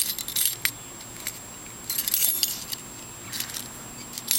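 Steel warded try-out key clicking and scraping in the keyway of a Master laminated warded padlock as it is worked in and out, in several short bursts; the key is not catching the wards and the lock stays shut.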